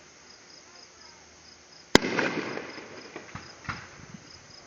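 A firework bursting with one sharp bang about two seconds in, followed by a second or so of crackling that fades, and a few lighter pops later. Crickets chirp steadily in the background, about four chirps a second.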